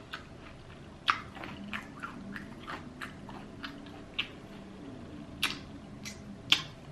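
A person chewing crunchy fried chicken close to the microphone: irregular crisp crunches, with a few louder ones about a second in and near the end.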